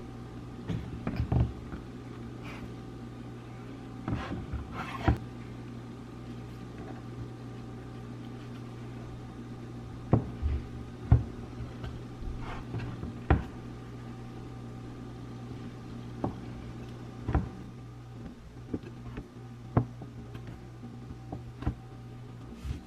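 A steady mechanical hum, like a running appliance or fan, with short knocks and clicks scattered throughout, the loudest about a second in and around eleven seconds in.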